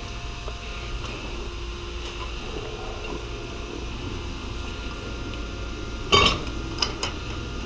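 Threaded steel pipe fittings clinking and knocking as they are handled and turned together by hand, with a sharp metallic clank about six seconds in and two lighter clicks just after. A steady low machinery hum runs underneath.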